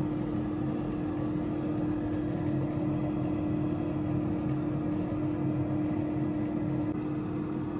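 Agaro air fryer oven running: the steady hum of its fan and motor, with one strong low tone over a even whir.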